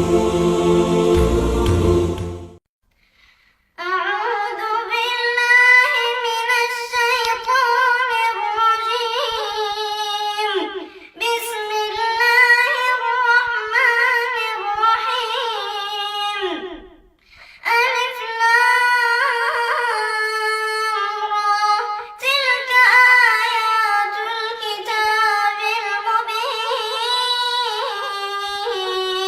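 A short burst of intro music cuts off about two and a half seconds in. After a second's silence, a solo female voice begins reciting the Quran unaccompanied in melodic tajweed style, in long ornamented phrases with short breaks between them.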